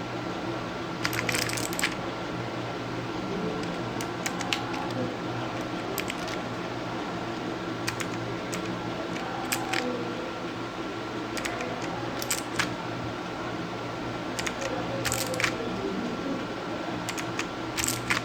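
Occasional single key presses on a mechanical keyboard with Kailh switches, sharp clicks spaced irregularly, sometimes two or three close together, over a steady electrical hum with a faint constant whine.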